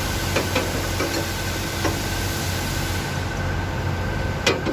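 A steady mechanical hum with several short, sharp metallic clicks, the loudest one near the end.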